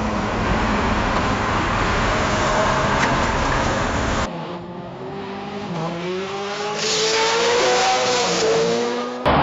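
A car engine running hard under a dense rush of road noise, then, after an abrupt cut about four seconds in, car tires squealing in a long wavering screech that grows louder toward the end.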